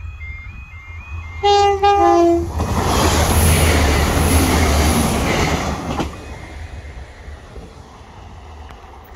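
A high electronic two-tone beep repeats steadily, then a diesel passenger train sounds two short horn blasts about a second and a half in, the second dropping in pitch. The train then passes close by with a loud rush of wheels and engine for about three and a half seconds, which cuts down to a fading low rumble as it runs away.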